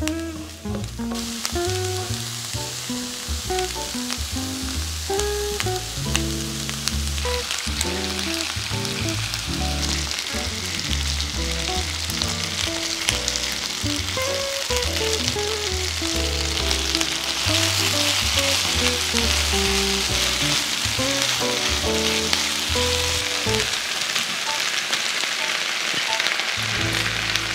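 Diced onion and chicken thigh pieces frying in a nonstick pan with a steady sizzle, which grows louder about a quarter of the way in and again past the middle as the pan heats up with the chicken. Light background music plays under it and stops near the end.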